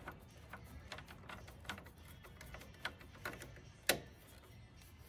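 Socket ratchet clicking in short, irregular strokes while tightening a bolt, with one sharper, louder click about four seconds in.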